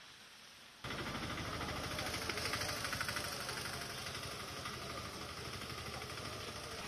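An engine running steadily, a low hum under a loud even hiss, which comes in suddenly about a second in.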